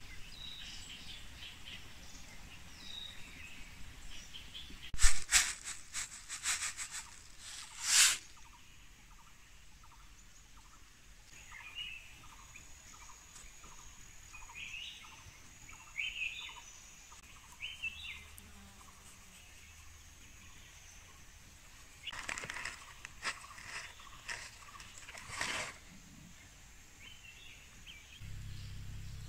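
Small birds chirping now and then over a quiet rural background. Twice, a cluster of louder, rough crackling bursts cuts in, each lasting a few seconds.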